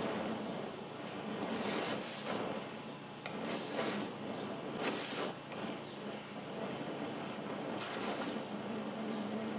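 Oxy-acetylene cutting torch flame hissing steadily against a steel bearing race, with four short, sharper hisses as the cutting oxygen is blipped to burn the race away a little at a time.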